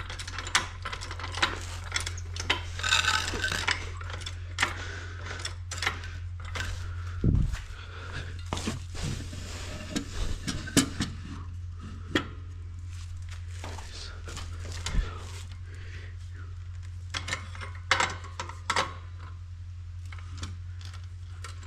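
Scattered clinks, knocks and rattles of tools and metal parts being handled while working on a quad, irregular and spread throughout, over a steady low hum.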